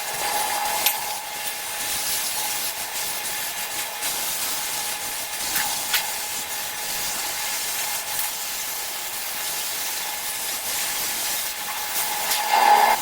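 Welding arc on a pipe joint, running as a steady hiss with a faint steady tone and a few brief crackles.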